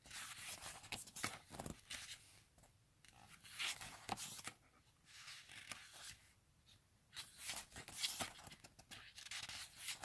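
Glossy pages of a photo book turned and handled by hand, paper rustling and sliding in three separate bursts.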